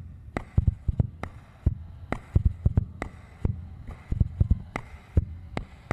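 Hadroh-style hand-played frame drums beating a lively, uneven rhythm of about three strikes a second, deep thumps mixed with sharper slaps.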